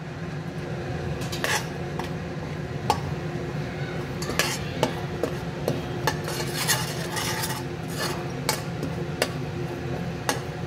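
A steel spoon stirring and scraping a spice and ginger-garlic paste masala in butter around a stainless steel kadai, with irregular clinks of spoon on metal. A steady low hum runs underneath.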